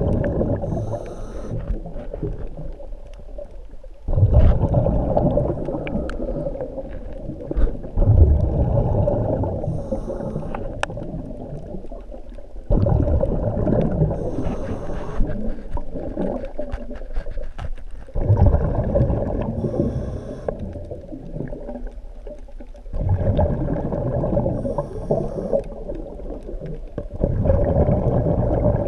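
Underwater breathing through a diving regulator: a bubbling rumble of exhaled air that surges about every four to five seconds, each exhalation lasting several seconds, with quieter gaps between.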